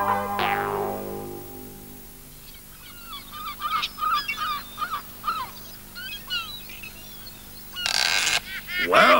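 A music cue fades out on its last chord, then seagulls cry over and over, faintly, as a cartoon seaside effect. About eight seconds in comes a short rush of noise, and honking calls start just at the end.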